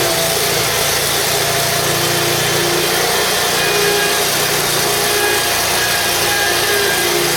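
Kawasaki FX850V V-twin engine of a Wright Stander zero-turn mower running steadily.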